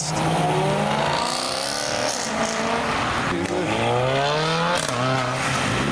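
Cars accelerating hard away on a wet road, one after the other. A silver BMW M3's engine note rises in a long sweep over the first two seconds, then a Mercedes A-Class hatchback revs up in another rising pull from about three and a half seconds in. Tyres hiss on the wet tarmac throughout.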